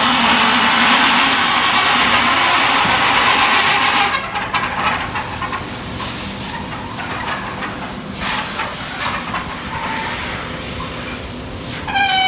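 Heavy-duty rolling steel shutter in motion, its slats grinding and scraping against the guide rails with a loud hiss-like noise that drops to a quieter, scratchy rubbing after about four seconds; near the end a pitched squeal sets in. The noise is an abnormal sound from the slats contacting the rails.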